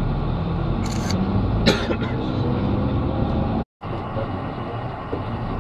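Steady low rumble of a vehicle's engine and road noise, heard from inside the moving vehicle. Two short, sharp noises come about a second in and just before two seconds. The sound cuts out for a moment about two-thirds of the way through.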